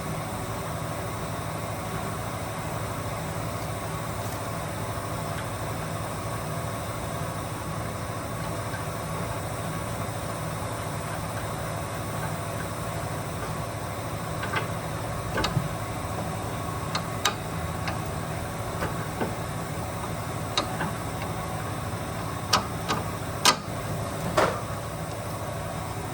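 Hand tools clicking and knocking on metal, a dozen or so short sharp strikes in the second half, while a new anti-roll bar drop link is fitted. A steady mechanical hum runs underneath.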